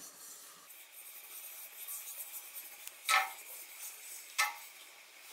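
Oil being wiped around a black iron tawa (flat griddle) by hand, over a faint steady hiss. Two short rubbing scrapes stand out, about three seconds in and again a second later.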